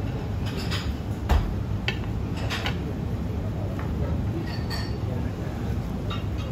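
A few light clinks and knocks of dishes and utensils, the sharpest about a second and a half in, over a steady low background hum.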